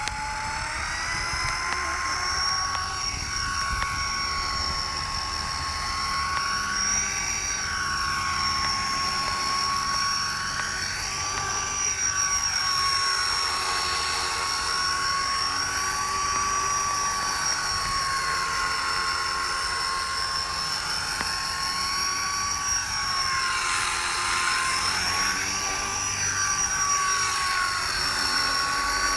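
Copter X 250 electric RC helicopter flying: a steady high whine from its brushless motor and spinning rotor, rising in pitch over the first second as it spools up, then holding, wavering as the helicopter moves about.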